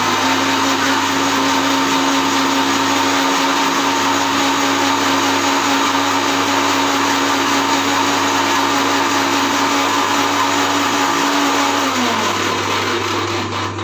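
Electric mixer grinder running at speed, grinding cooked tomato chutney with a little water in its steel jar, with a steady motor hum over a loud whirring noise. About twelve seconds in it is switched off and the hum falls in pitch as the motor winds down.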